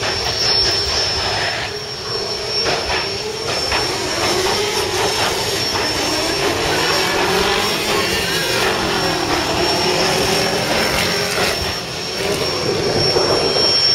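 Loud, steady engine running, its pitch dipping and then rising again about two thirds of the way through.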